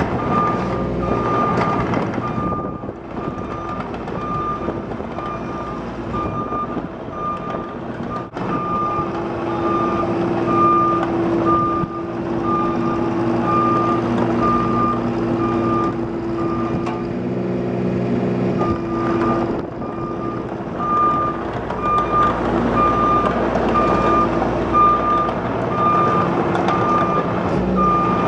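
Cat 302.5C mini excavator tracking, its travel alarm beeping about twice a second over the steady running of its diesel engine. The beeping breaks off briefly twice.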